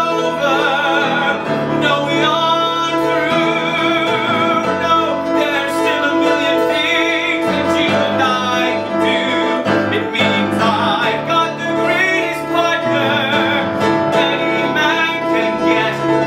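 A male singer performing a musical-theatre song with vibrato over live instrumental accompaniment.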